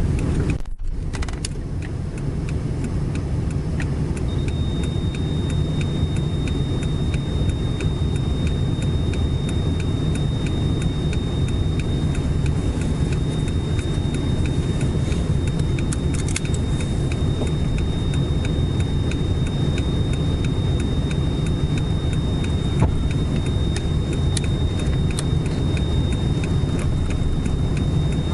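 Toyota AE86's 5-valve (20-valve) 4A-GE four-cylinder engine running at a steady idle, heard inside the cabin. A steady high-pitched tone joins the engine sound about four seconds in.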